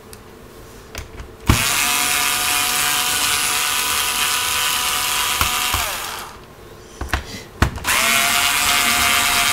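Electric screwdriver backing out laptop case screws. Its motor whines steadily for about four seconds and then winds down. A few light clicks follow, then it spins up again near the end.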